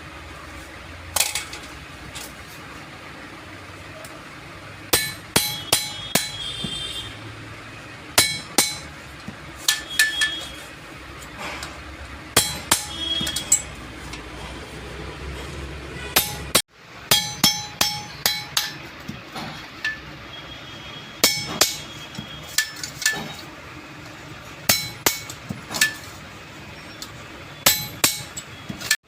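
Hammer blows on metal while a truck clutch disc is being relined: sharp, ringing strikes, mostly in quick groups of two to five, with short pauses between groups.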